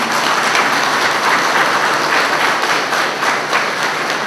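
Audience applauding: dense, steady clapping that thins a little near the end.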